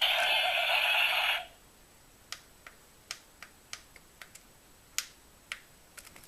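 A talking dinosaur toy's small speaker plays a loud electronic sound effect that cuts off about a second and a half in. After it comes a series of irregular light clicks.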